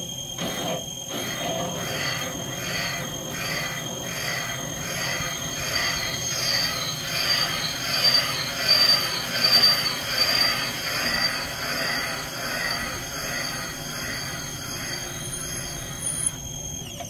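Valve-seat cutter spinning in a cylinder head's valve seat, cutting a three-angle seat: a metallic squealing chatter that pulses a little under twice a second over a steady high whine from the machine. The cutting stops about a second before the end.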